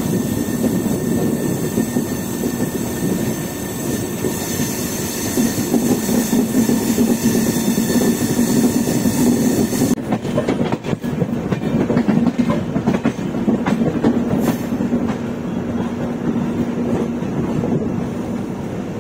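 Shatabdi Express passenger train running on the track: steady, dense running noise of wheels on rails heard from on board. The higher hiss in it drops away suddenly about halfway through.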